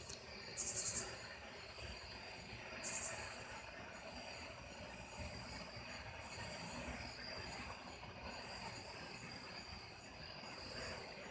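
Night insects chirring steadily, high-pitched, with two loud short buzzing pulses about half a second and three seconds in. Beneath them runs a faint mid-pitched drone: the strange sound heard coming from the night sky.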